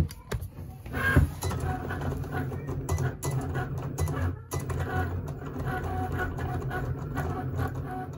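Cricut electronic cutting machine cutting a design into vinyl: its motors hum steadily and whir in short, quickly changing runs as the blade carriage moves across the mat.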